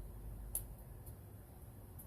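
A single light click about half a second in, a hand tool against metal, over a faint low rumble.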